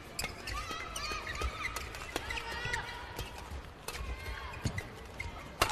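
Badminton doubles rally: rackets striking the shuttlecock with sharp cracks about once a second, the loudest hit near the end, while court shoes squeak on the court mat.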